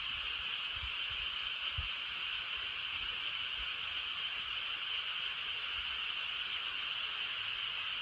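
Steady summer-night chorus of insects, a continuous high hiss without breaks. Faint low rumbles from wind on the microphone come and go underneath.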